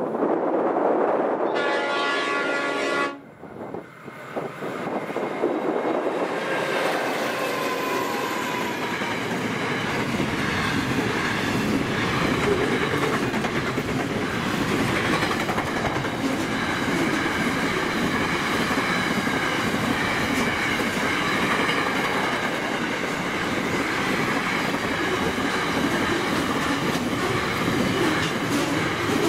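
Diesel locomotive horn sounds for about a second and a half. After a short lull, a freight train rolls past steadily and loudly, its wheels clacking over the rail joints above a continuous rumble.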